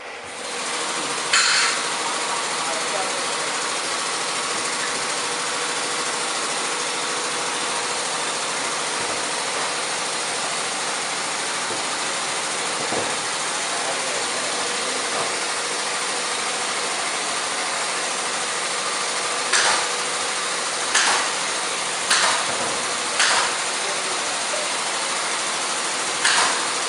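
A steady, loud hiss-like noise, with one sharp knock about a second in and a run of five sharp knocks near the end as the booth panels are handled and fitted together.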